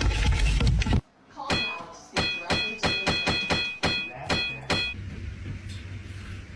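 A quick series of about a dozen sharp strikes, each ringing on the same few high tones, like an object being struck repeatedly.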